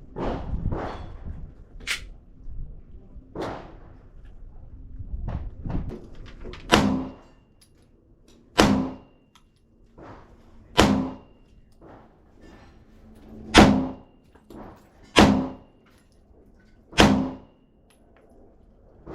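A .40-calibre semi-automatic pistol being fired in slow, single, aimed shots. Six loud shots come about two seconds apart in the second half, after several fainter bangs early on.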